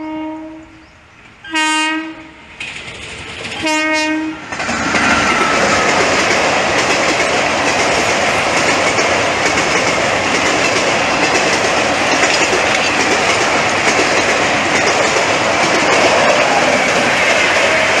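Electric locomotive's air horn, from a WAP4, sounding three short blasts, then the train's passenger coaches rolling past over a bridge with a steady loud noise of wheels on rails.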